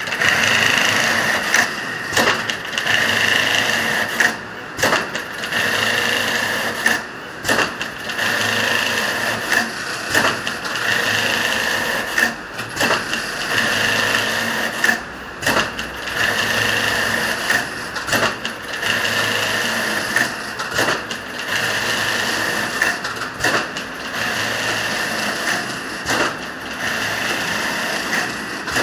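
Computerized pattern sewing machine with two single-needle heads stitching a pattern into mattress side-panel fabric: a steady, high-pitched mechanical whirr of needle strokes whose level dips briefly every couple of seconds.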